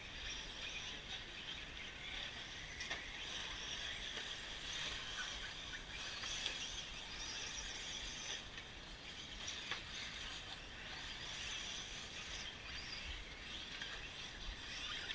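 Radio-controlled truggies racing on a dirt track, heard faintly as a fluctuating high-pitched motor whine, with a couple of short clicks.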